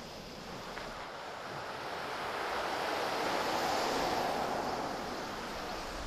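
A car passing on the road: tyre and engine noise swells gradually, peaks about midway and fades away again.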